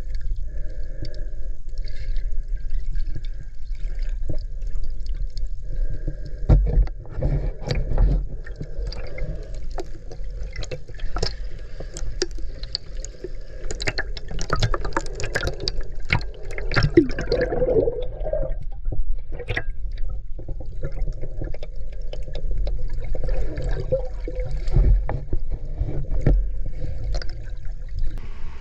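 Water gurgling and sloshing around a submerged camera, over a low rumble, with scattered clicks and crackles that are densest in the middle.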